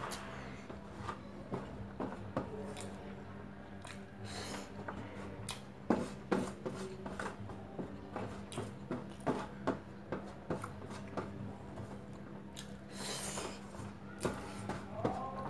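Eating by hand from a stainless steel tray: fingers scrape and gather rice off the metal with many small clicks and rubs, along with mouth sounds of chewing. A steady low hum runs underneath.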